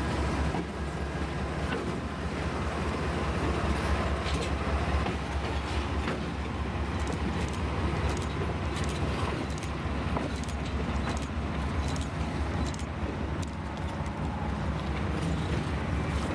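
Excursion train running on the rails: a steady low rumble with scattered clicks and clacks of the wheels over the track.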